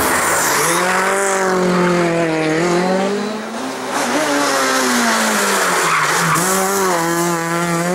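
A car's engine on hard throttle in a drift, its pitch rising and dipping several times, with the tyres squealing and scrubbing throughout.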